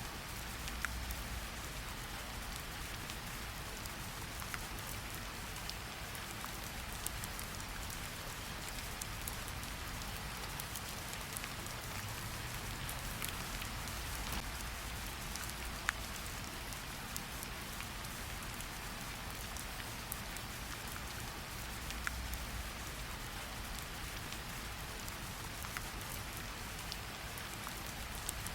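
Steady rain with a crackling wood fire: an even hiss of rain with occasional sharp pops and crackles scattered through it.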